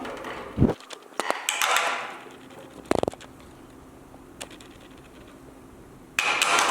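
Small tools and parts being handled on a workbench: scattered light clicks and knocks, with a few short rustling bursts, the last near the end.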